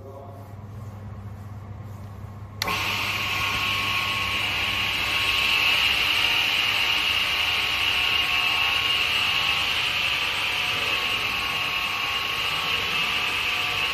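Maggi Junior 640 radial arm saw with a 3 kW motor running: first a low, steady motor hum, then about two and a half seconds in a sudden jump to a louder, steady whir of the spinning blade that holds to the end.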